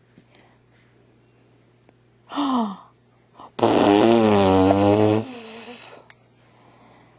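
A short falling vocal sound, then a loud buzzing raspberry blown through the lips, wavering in pitch for about a second and a half.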